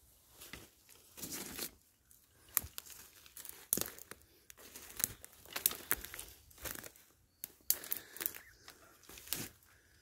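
Footsteps crunching and crackling through dry leaves, twigs and plant litter, in uneven steps about one or two a second.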